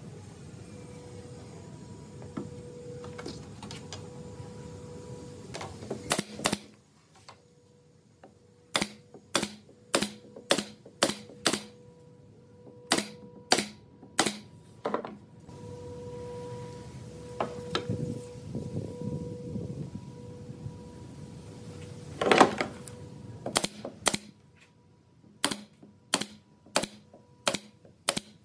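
Pneumatic brad nailer firing brads into wooden trim: sharp snaps in quick runs of about two a second, with a pause between the runs. A faint steady hum runs underneath.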